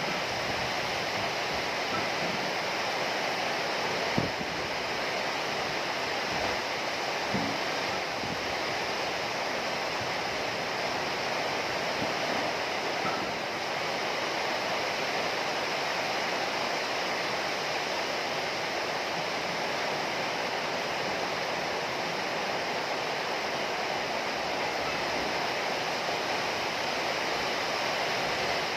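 Heavy rain falling steadily, an even hiss of rainfall without pause, with a couple of brief louder taps about four seconds in and again a few seconds later.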